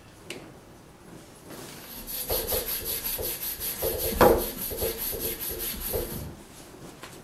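Quick back-and-forth rubbing strokes, about five a second, starting about two seconds in and stopping about six seconds in, with one louder stroke near the middle.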